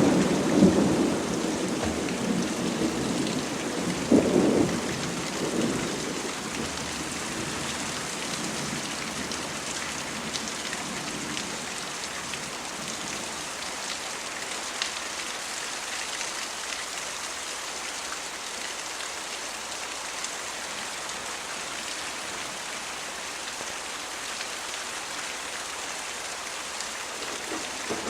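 Thunderstorm: steady rain hissing, with a roll of thunder dying away over the first few seconds, another short rumble about four seconds in, and thunder building again at the very end.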